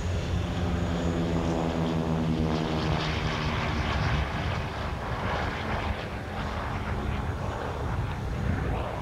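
Lockheed P-38 Lightning's twin Allison V-12 engines at takeoff power as the aircraft rolls, lifts off and climbs away. The engine note falls slightly in pitch over the first few seconds, then turns into a rougher rush. Wind rumbles on the microphone underneath.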